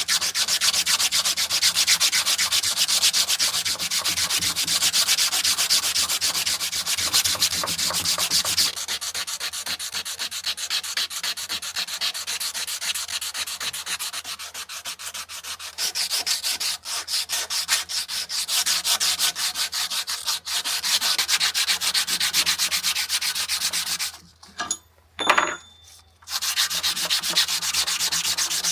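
Fast back-and-forth abrasive rubbing strokes, as in hand-sanding or stoning a knife, continuing steadily. The rubbing changes character about a third of the way in and stops briefly near the end.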